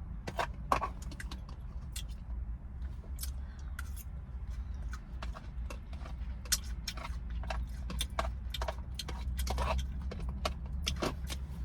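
Close-up eating sounds: irregular wet clicks and smacks of chewing and lip smacking, over a low steady hum.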